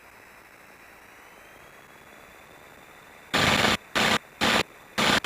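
Aircraft radio heard through the cockpit audio feed: a steady faint hiss, then from about three seconds in a run of short, loud bursts of static as a transmitter is keyed on and off.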